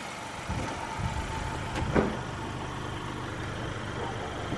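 Car engine idling steadily with a low rumble, with a single short knock about two seconds in.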